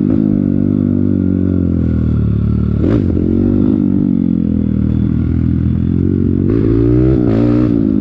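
Trail motorcycle's engine running under way. Its pitch sags over the first few seconds, jumps briefly about three seconds in, then rises and falls again near the end.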